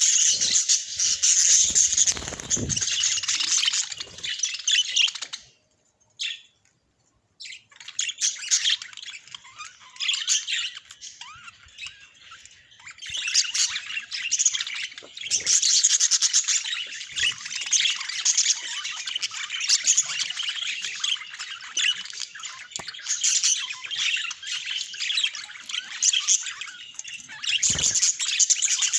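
Budgerigars chattering, warbling and chirping in a dense, continuous flock chatter, with a brief break of near silence about six seconds in.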